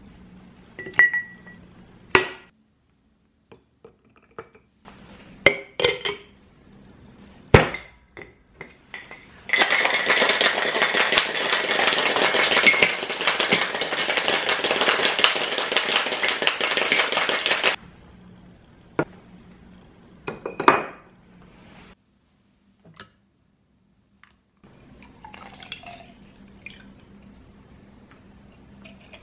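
Glass and ice clinking as the shaker is loaded and closed, then a cocktail shaker full of ice shaken hard for about eight seconds, a rapid rattling. A sharp clink follows as the shaker is opened, and near the end the drink trickles through a fine-mesh strainer into a glass.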